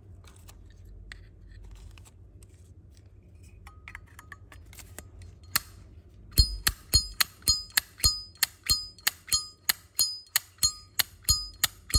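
Zippo lighter lid being snapped open and shut over and over, a sharp metallic clink with a short ring, about three to four times a second, starting about six seconds in after a few softer clicks.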